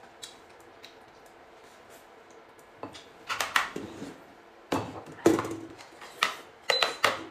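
Tableware clattering: bowls, plates and utensils knocked and set down on a table. The first three seconds are quiet; after that come several clusters of sharp knocks, some leaving a short ring.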